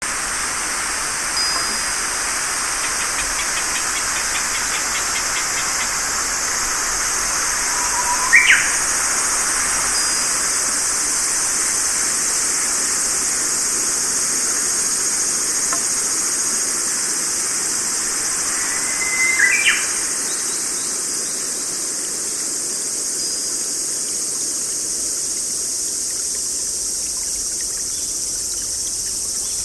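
Nature soundscape: a steady high-pitched insect chorus over a constant hiss, with two short bird calls about eight and nineteen seconds in.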